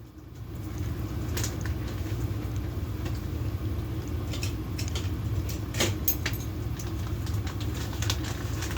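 Steady low rumble of a vehicle engine running, building up over the first second and then holding even, with a few scattered light clicks over it.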